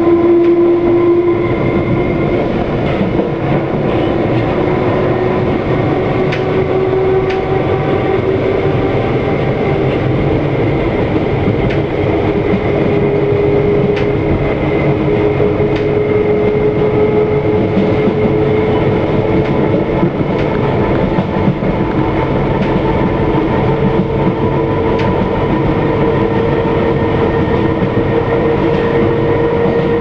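London Underground D stock train heard from inside a carriage, accelerating to about 35 mph. A steady motor whine rises slowly in pitch over the loud running noise, with occasional clicks from the wheels over rail joints.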